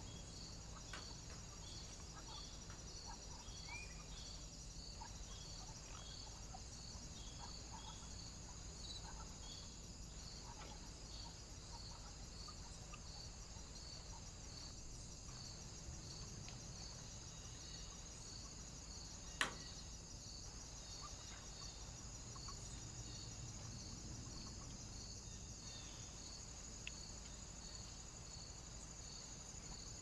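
Faint, steady high-pitched electronic whine with a regular pulse about one and a half times a second, from the trail camera's own circuitry, over a low steady hum. A few faint ticks and one sharp click come about two-thirds of the way through.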